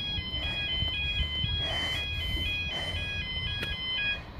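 Railway level crossing warning alarm sounding a high-pitched two-tone warble that alternates about twice a second, then cuts off near the end, over a low background rumble.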